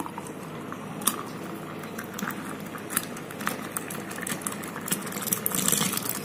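Sweet lassi poured in a thin stream into a steel tumbler, a steady splashing hiss with many small crackling pops as the froth builds. It gets somewhat louder near the end as the glass fills.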